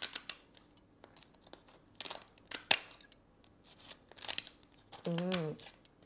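Scissors snipping and crunching through the shell of a steamed mud crab in a few sharp cuts, the loudest about three seconds in. Near the end there is a short hummed voice sound.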